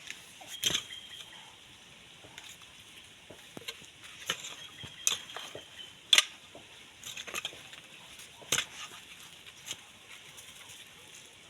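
Irregular knocks, crunches and scrapes from digging and handling potatoes in the soil, scattered at uneven intervals, the loudest knock about six seconds in.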